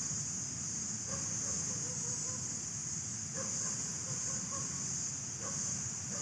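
Steady high-pitched insect chorus, with a few short, soft animal calls about a second in and again after about three seconds.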